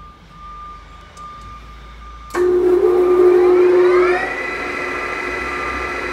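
SUPERMAX G-2238 engine lathe's headstock spindle starting up about two seconds in. Its gear whine rises in pitch for a couple of seconds as the chuck comes up to speed, then runs on as a steady whine.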